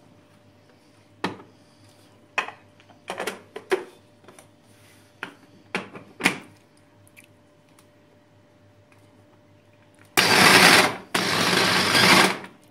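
Electric mini chopper (rondo) run in two pulses of about a second each near the end, its blades grinding soaked dried figs and milk into a purée. Before that, a few scattered knocks and clicks as the chopper is handled.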